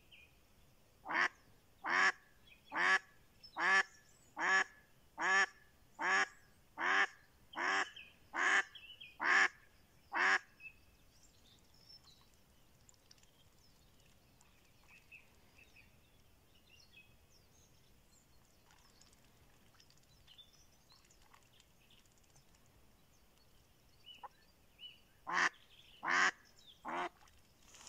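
Live decoy hen duck quacking to lure drakes: a run of about a dozen loud quacks, a little under a second apart, then after a long pause a shorter run of three.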